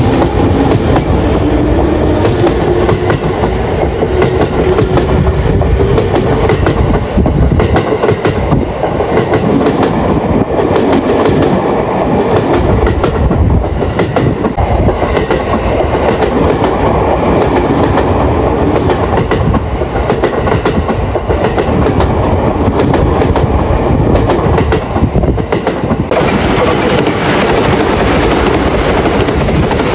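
Train wheels rolling past close by, clattering over rail joints in a loud, steady clickety-clack of repeated clicks over a rumbling roar. The sound changes near the end as another train takes over.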